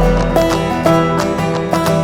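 Background music: a plucked-string tune, guitar-like, over a deep bass, with a steady beat.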